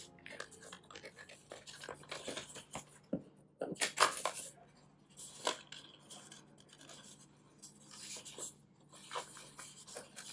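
Hands handling and rubbing things on a desk during an unboxing: irregular scraping and rubbing strokes in bunches, with the loudest about four seconds in.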